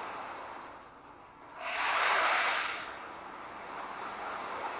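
Ocean drum: beads rolling across the inside of the octagonal frame drum as it is tilted, making a soft wash like surf. It swells to its loudest about two seconds in, then eases back to a gentler wash.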